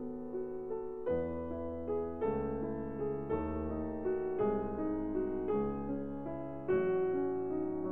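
Background piano music, with a new chord struck about once a second.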